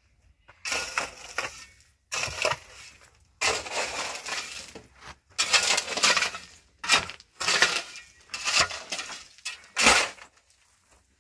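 A shovel digging and scraping into stony, gravelly soil, the stones crunching and clinking. It comes as a run of separate strokes, each a second or so long.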